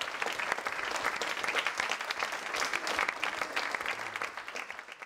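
Audience applauding, a dense steady patter of many hands clapping that fades away near the end.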